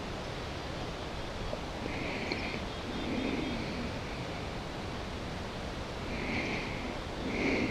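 Steady rush of flowing river water, with a few short, louder noises over it about two, three, six and seven seconds in.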